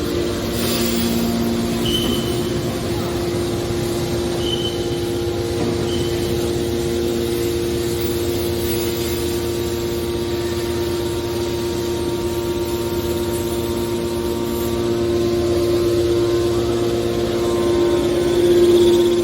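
Hydraulic aluminum baler running, its power unit giving a steady hum. Three short, high chirps come in the first few seconds, and the sound swells briefly near the end.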